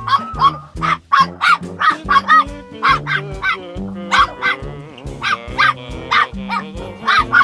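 Background music: a bouncy tune of short plucked notes over a moving bass line, with a steady beat.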